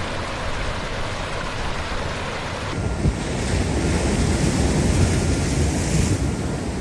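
Floodwater rushing over rocks down a storm channel, a steady rushing noise. About three seconds in it changes to ocean surf with wind rumbling on the microphone.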